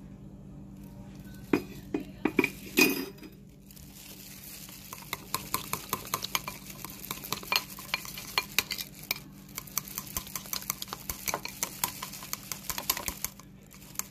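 Metal chopsticks whisking batter in a bowl, clicking quickly against the bowl's sides. A few louder knocks come about two seconds in, then fast, steady clicking from about five seconds until just before the end.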